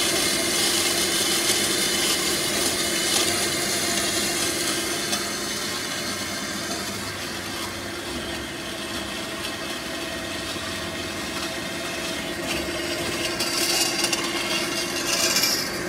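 A 2001 Kasto SSB A2-CNC-CC automatic vertical band saw running, its blade cutting through rectangular steel tubing: a steady hum under a hiss. It eases off a little partway through, and a couple of brief, louder hisses come near the end.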